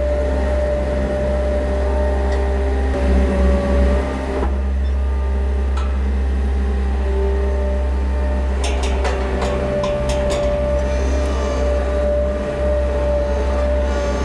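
Mustang 2044 skid-steer loader's engine running steadily as it drives about. A few sharp knocks come around nine to ten seconds in.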